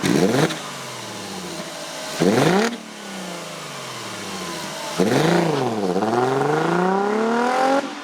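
Car engine revving: two quick throttle blips that rise and fall back, then a longer climb in revs that cuts off suddenly near the end.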